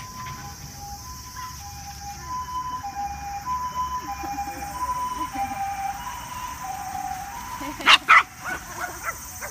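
Two-tone ambulance siren of the Japanese kind, alternating steadily between a higher and a lower note about every half second. About eight seconds in, a dog barks twice, loud and sharp.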